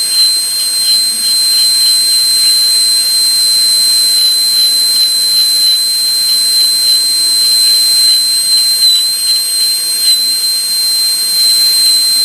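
High-speed air-turbine dental handpiece (airotor) with a 330 bur running with a steady high-pitched whine and air hiss as it cuts the outline of a Class I cavity in a model molar, connecting the depth-cut pits. The pitch dips briefly about nine seconds in as the bur bears on the tooth.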